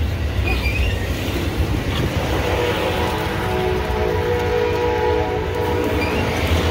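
Amtrak Coast Starlight double-deck passenger cars rolling past close by with a heavy, steady low rumble. About two seconds in, a steady chord of several held tones joins and keeps sounding over the rumble.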